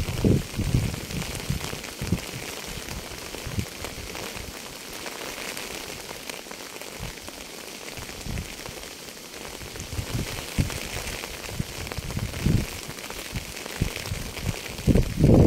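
Steady rainfall hissing on a surface, with scattered low thuds that grow louder near the end.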